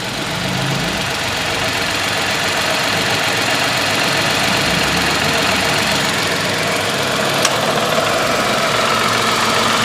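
Tata Altroz's 1.2-litre three-cylinder petrol engine idling steadily just after a start, settling over the first couple of seconds. A single short click sounds about seven and a half seconds in.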